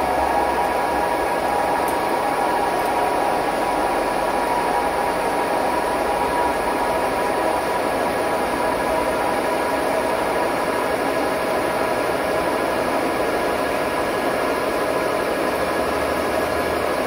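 Metal lathe running steadily, its cutting tool turning down a stainless steel shaft with coolant spraying onto the work: a steady whine over a hiss.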